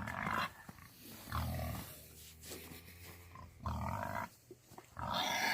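An animal grunting: four low grunts, a second or two apart.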